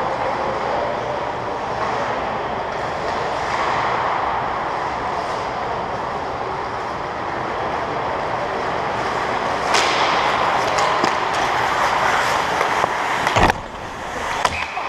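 Ice hockey play in an echoing indoor rink: a steady wash of skate blades carving and scraping the ice, with a sharp scrape about ten seconds in and a loud knock near the end.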